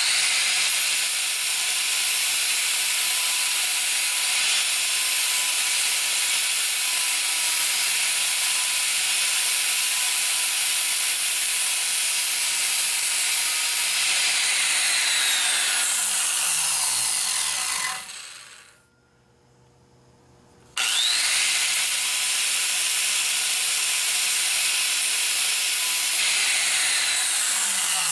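Electric angle grinder grinding on the flange of a cast exhaust manifold. It runs steadily for about eighteen seconds, is switched off and winds down, then spins up again about two seconds later and grinds on.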